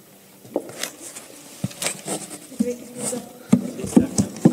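Knocks, taps and rustling from things being handled and set down on a lectern, picked up close by the podium microphone. The thumps get louder and closer together toward the end.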